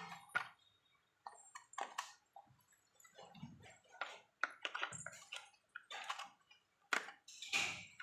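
Irregular small clicks, taps and crinkly rustles, with short pauses between them, from hands handling a toy RC car and its plastic packaging.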